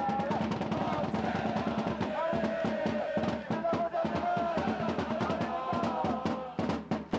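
Football supporters beating a drum in a quick, steady rhythm while a crowd chants and sings along.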